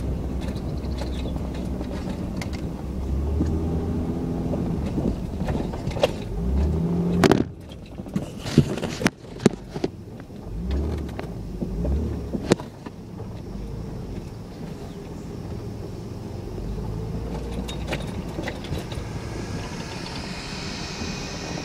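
Honda Ridgeline's V6 running steadily at low speed. About seven seconds in the engine sound drops away, and a run of sharp clicks and knocks follows. After that only a quieter low hum remains.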